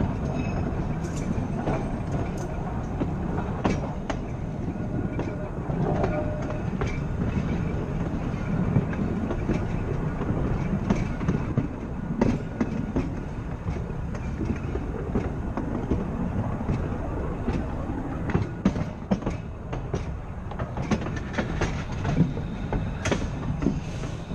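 Blackpool 'Boat' tram running along the line: a steady rumble of wheels and running gear, with irregular clicks as the wheels pass over rail joints, more frequent in the second half.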